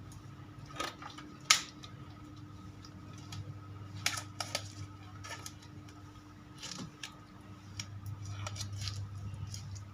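Scattered clicks and light knocks of objects being handled, the sharpest about a second and a half in and a small cluster about four seconds in, over a steady low hum.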